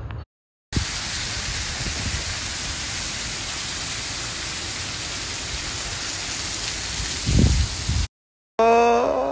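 A steady, even hiss with a brief low rumble about seven seconds in, cutting off abruptly near the end.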